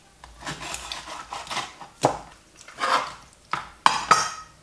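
Kitchen knife cutting through a raw whole chicken on a plastic cutting board, with scraping and rubbing as the meat is worked and a few sharp knocks of the blade on the board, one about two seconds in and several close together near the end.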